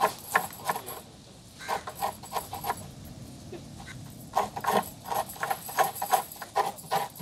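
Coconut being scraped by hand on a coconut scraper: rhythmic rasping strokes, about three a second, in runs broken by short pauses.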